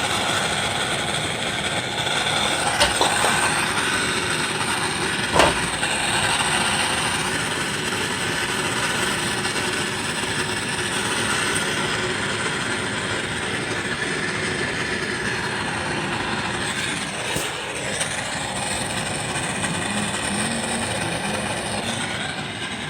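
Handheld gas soldering torch burning with a steady flame hiss, heating a fluxed copper pipe fitting for soldering. A couple of short sharp clicks come in the first few seconds.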